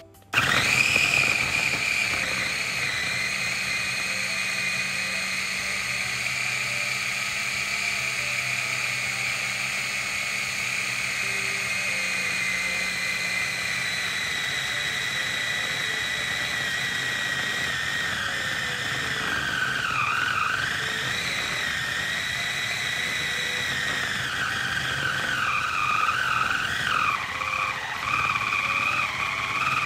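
KitchenAid mini food chopper starting up and running with a steady high motor whine as it blends butter, sugar, egg and flour. In the second half the whine dips and wavers while the mix clumps into cookie dough.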